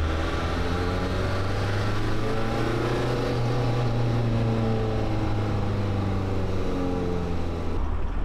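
Mk1 VW Rabbit's turbodiesel engine pulling the car along under load, heard inside the cabin, its pitch rising over the first few seconds and then easing. The sound changes abruptly near the end.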